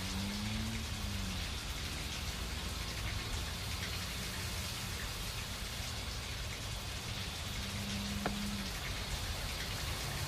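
Steady rain falling, with a short low hum near the start and again about eight seconds in.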